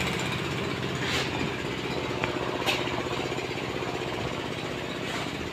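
A small engine running steadily with a fast, even chugging.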